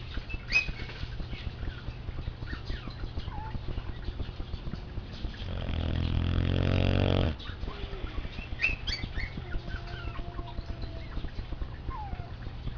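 Boxer dog snoring in its sleep: one long snore of about two seconds near the middle, building in loudness and then cutting off sharply.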